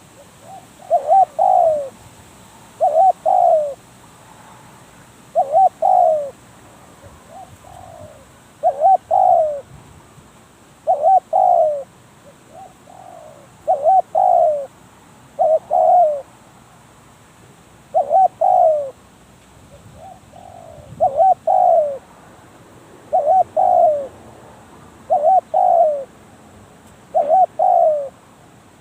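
Spotted dove cooing: short two- to three-note coo phrases repeated about every two to three seconds, about twelve times, with a few fainter coos in between.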